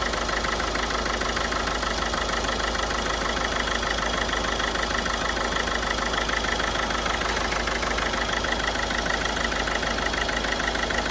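Ford Figo turbo-diesel engine idling steadily with a fast, even clatter while it runs a carbon-cleaning treatment meant to cure an injector misfire.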